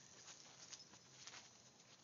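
Near silence: faint outdoor background hiss with a few soft ticks.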